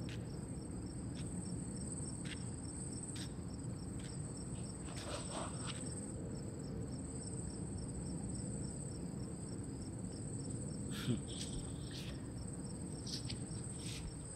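Crickets chirring steadily at night: a constant high trill with a fast regular pulse, over a low steady rumble. There are a few faint clicks and one brief soft knock about eleven seconds in.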